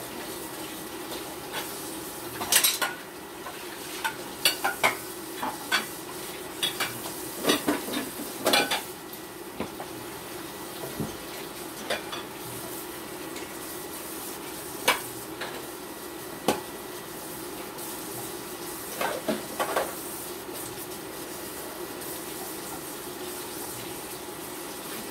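Dishes and cutlery clinking and knocking at irregular intervals as dishes are washed, over a steady sizzle from a pancake frying in an oiled pan.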